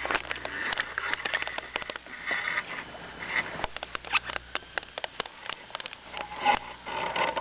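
Spinning reel clicking and ticking irregularly while a hooked pike is fought and runs, pulling line.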